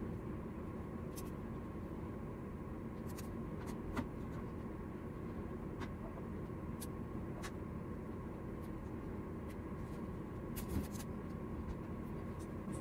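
Steady low hum, with a few faint clicks and rustles of straight pins and fabric as a side seam is pinned by hand.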